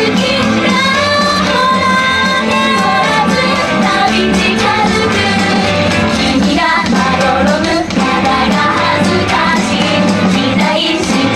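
Upbeat J-pop idol song played over a sound system, with a group of young women singing into handheld microphones over the backing track.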